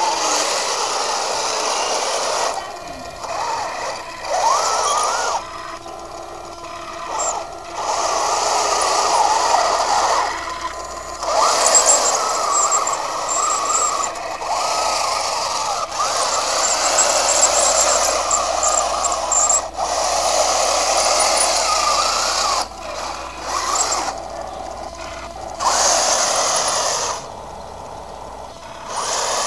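Radio-controlled model Panzer IV tank driving over grass: its electric drive motors and gearboxes whine in stop-start bursts of a few seconds, the pitch rising and falling as it speeds up, slows and turns, with short pauses between.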